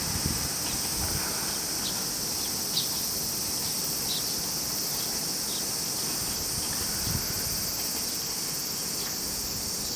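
A steady, high-pitched chorus of summer insects, with the low running sound of a departing diesel railcar fading away underneath it in the first seconds.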